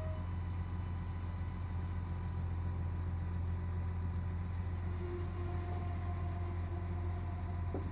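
An engine running steadily at idle: a deep, even drone that does not change.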